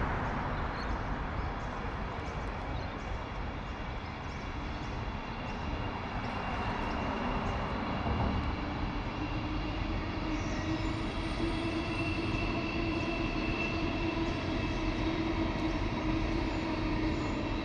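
Vehicles crossing the bridge overhead: a steady rumble with a sustained hum that grows stronger about halfway through.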